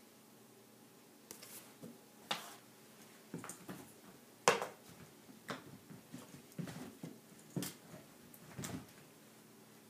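A ten-week-old Briard puppy scuffling and pouncing on a rug while playing with a toy: a string of irregular short knocks and scrapes, the loudest about four and a half seconds in.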